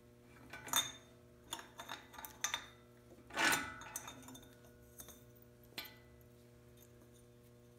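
Metal clinks and knocks as the notcher's vise screws are backed off by hand and the coped square tube is worked loose from the jaws, with a longer, louder scrape about three and a half seconds in. A faint steady hum runs underneath.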